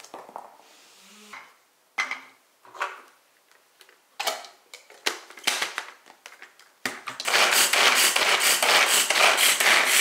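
Light plastic knocks and clatters as garlic cloves go into a small pull-cord mini chopper and its lid is put on. About seven seconds in, the cord is pulled over and over in quick succession, its blades whirring and chopping the garlic.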